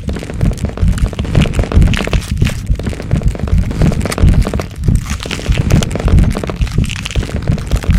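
Transformation-growth sound effect: a dense, continuous stream of cracking and crunching over a deep low rumble.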